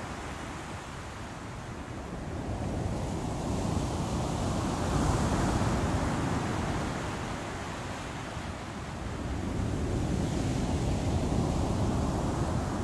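Storm at sea: wind and heavy waves rushing and surging, swelling up about a third of the way in, easing, then swelling again near the end.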